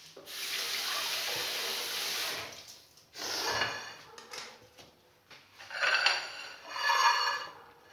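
Tap water running over an onion as it is washed: a steady stream for about two seconds, then three shorter runs of water and splashing.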